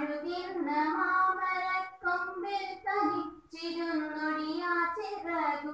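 A girl singing solo into a microphone, holding long notes with short breaks for breath between phrases.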